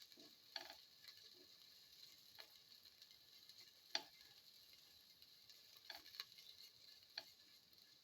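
A spoon stirring vegetables sautéing in a pan, tapping against the pan now and then, loudest about four seconds in, over a faint sizzle. The whole is quiet.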